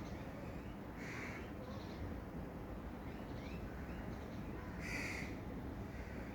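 Wild birds calling: two short, loud calls about four seconds apart, with faint chirps between them over steady background noise.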